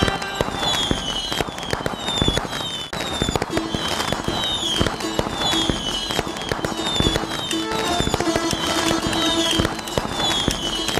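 Fireworks bursting and crackling in quick succession, with many short, high, falling whistles repeating throughout, over faint music.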